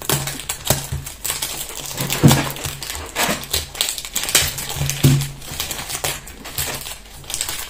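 Clear cellophane wrap crinkling and crackling as it is torn and peeled off a cologne box, over background music.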